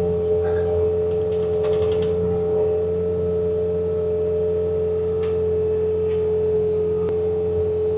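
Bobcat T66 compact track loader with its snowblower attachment running steadily: a constant high whine over a low diesel drone, holding the same pitch throughout.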